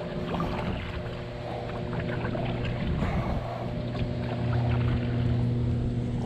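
A steady low electric hum with a few even overtones, growing a little louder about four seconds in, with a few light clicks of handling on top.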